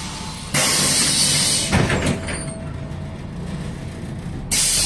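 Compressed air hissing from the pneumatic doors of a MAZ-105 city bus. A sudden burst of hiss starts about half a second in, a few knocks follow about two seconds in as the doors move, and another sudden burst of hiss comes near the end.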